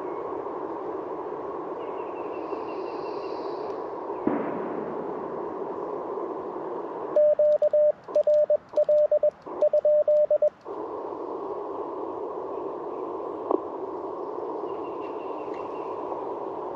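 Icom IC-705 transceiver on the 20-metre band: a steady hiss of band noise through the narrow CW filter, then, about seven seconds in, three or four seconds of hand-sent Morse code heard as an on-off sidetone beep, the receiver hiss muting while the key is down. A single short thud about four seconds in.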